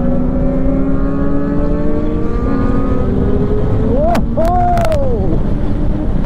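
Superbike engine running hard under acceleration, its pitch climbing slowly. About four seconds in comes a short rise and fall in pitch, with a few sharp clicks.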